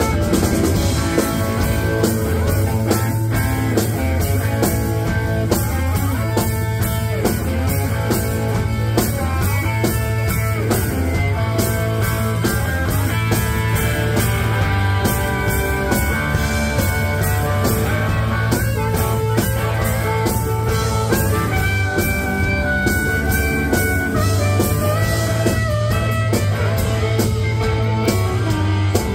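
Live blues-rock band playing: electric guitar and drum kit, with a harmonica blown into a hand-held microphone, its held notes standing out over the band.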